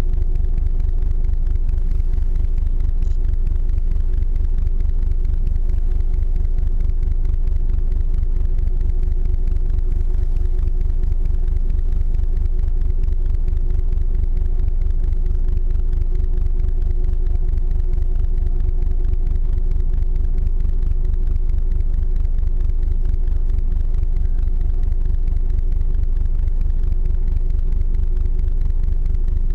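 Icebreaker ship's engine running steadily: a constant low rumble with a steady hum above it.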